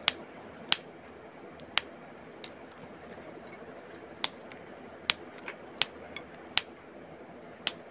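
Long beans (sitaw) snapped into short pieces by hand: a sharp snap every second or so, about eight in all, unevenly spaced.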